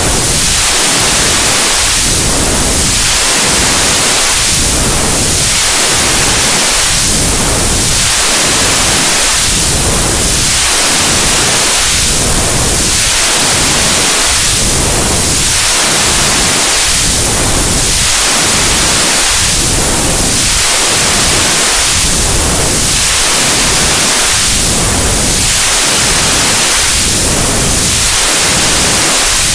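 Loud, steady electronic white noise with a swirling, whooshing sweep that rises and falls about every two and a half seconds.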